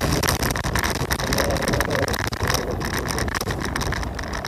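Scooter riding at speed: steady wind rush over the microphone mixed with road and motor noise.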